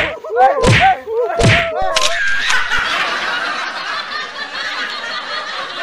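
Slapstick fight blows: three thudding hits in the first two seconds with a wavering pitched sound between them, then a long noisy hiss that slowly fades.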